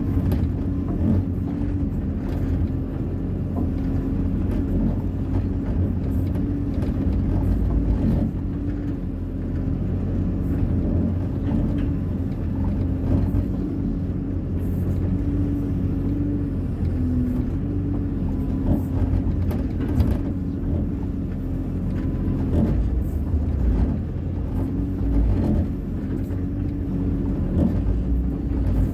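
Hyundai 140 wheeled excavator's diesel engine running steadily at working revs, a low rumble with a held hum that wavers slightly in pitch.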